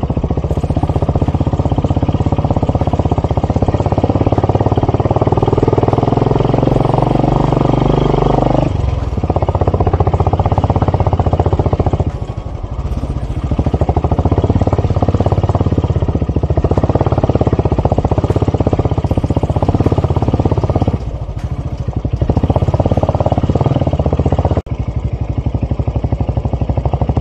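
A vehicle engine running steadily under load, easing off briefly about four times.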